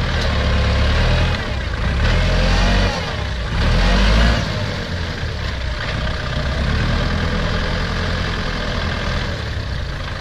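Diesel engines of a Kubota farm tractor and a mired six-wheel dump truck working hard together as the tractor pushes the stuck truck out of the mud. The revs surge and fall three times in the first four seconds, rising in pitch just before the third surge ends, then settle to a steadier run.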